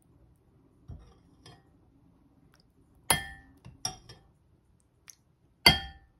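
Metal spoon and fork clinking against a ceramic bowl and a glass bowl. A soft knock comes about a second in, then three sharp ringing clinks from about halfway, the last one loudest.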